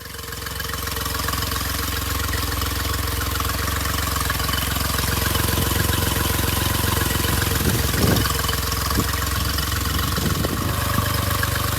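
Honda 40 hp four-stroke outboard motor idling steadily, fading in over the first second.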